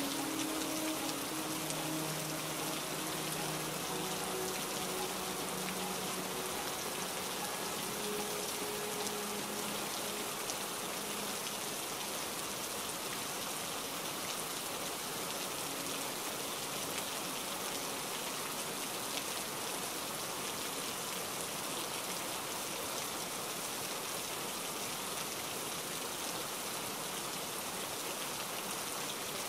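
Heavy rain falling steadily, a dense even hiss of drops. Faint low held tones sit under it in the first ten seconds or so and fade out.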